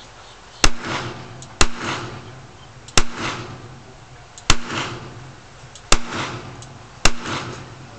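.38 Smith & Wesson revolver fired six times, shots about one to one and a half seconds apart, each crack trailing off in a short echo.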